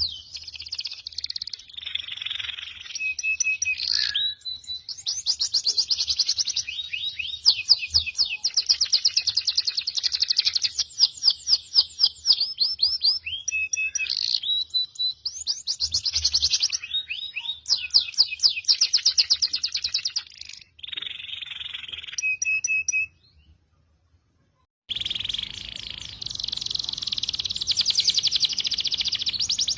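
Recorded songbird song of the kind used to tutor caged birds: fast rattling trills and sharp high chirps in quick succession. It drops out for about two seconds near the end, then resumes as a denser, unbroken trill over a low hum.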